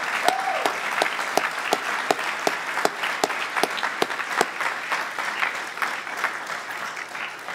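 Church congregation applauding, with dense rapid clapping and a short cheering voice near the start. The applause gradually dies down.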